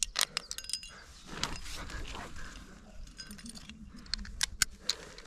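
Climbing carabiners and quickdraws clinking in quick, sharp metallic clicks, in a flurry at the start and again about four seconds in, as a lead climber handles the rope at a quickdraw clipped to a bolt.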